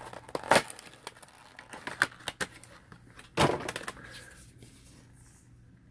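Plastic blister package of a die-cast toy car being opened by hand: a run of sharp crinkles and clicks, with the loudest snaps about half a second in and about three and a half seconds in.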